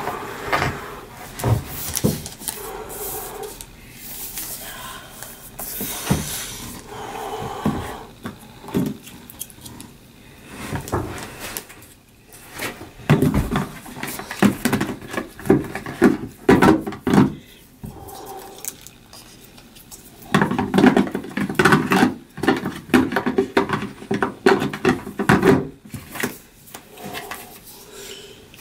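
Unboxing handling of a MacBook Pro's cardboard box and packing: rubbing, sliding and rustling with irregular light knocks and clicks, in busier stretches about halfway through and again in the later part.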